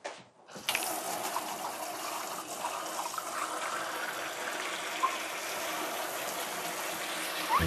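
Kitchen tap turned on under a second in, then water running steadily from the faucet into a stainless steel sink and over hands rinsed in the stream.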